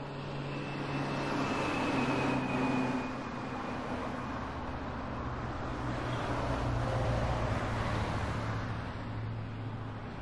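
Vehicles passing by on a road, twice swelling and fading, the first with a faint high whine, over a steady low hum.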